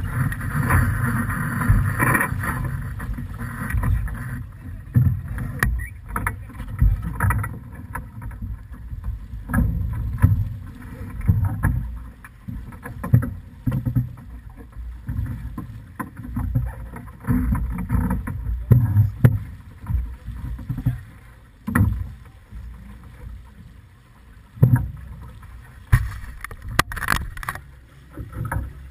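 Wind buffeting the microphone in uneven gusts over water rushing and splashing along the hull of a heeled sailing yacht under way, with occasional knocks and slaps from the boat.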